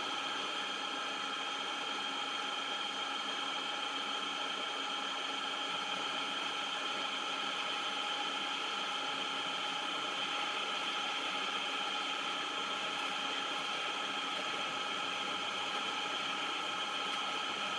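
Manual metal lathe running at a steady speed, a continuous mechanical whir with a steady whine of several tones from the spinning chuck and gearing.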